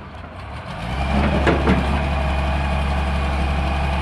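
Heavy diesel engine of a hydraulic excavator growing louder about a second in, then running steadily at higher speed with a thin, steady high whine over it.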